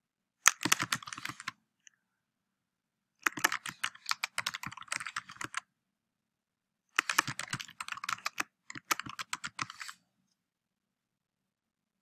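Typing on a computer keyboard: three quick runs of keystrokes, the first about a second long and the other two two to three seconds each.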